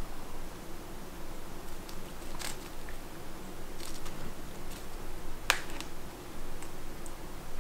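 A few scattered sharp clicks and snaps, the loudest about five and a half seconds in, over a faint steady hum.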